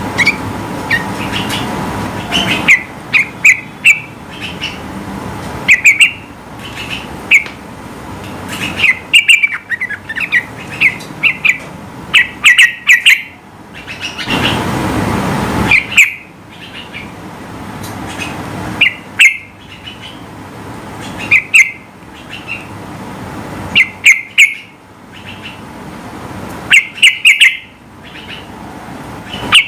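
Yellow-vented bulbul (trucukan) calling: short, loud bubbly phrases of a few quick chirped notes, repeated every one to three seconds. A rushing background noise sits underneath, swelling briefly around halfway.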